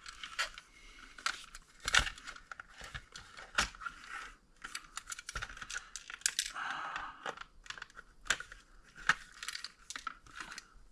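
Power supply parts being handled and worked apart by hand: irregular clicks and knocks with scraping and rustling between them, and a longer scrape about seven seconds in.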